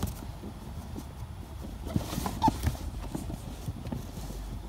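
Heavy folded PVC inflatable boat being shifted about inside a cardboard box: irregular knocks, cardboard scraping and rubbing of the stiff PVC, louder and busier about two seconds in.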